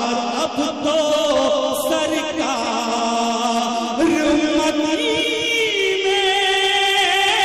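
Male naat reciter singing through a microphone and sound system, drawing out long, ornamented held notes. About four seconds in he moves to a new held note.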